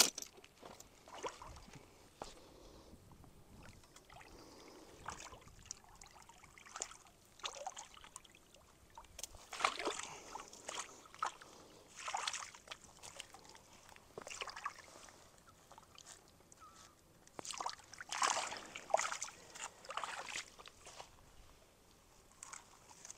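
Faint, irregular splashing and sloshing of water at the shoreline in short bursts, as a hooked catfish is landed by hand.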